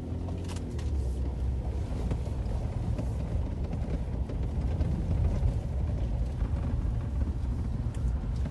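Car driving along a bumpy dirt road, heard from inside the cabin: a steady low rumble of engine and tyres on the rough, puddled surface, with a couple of faint clicks.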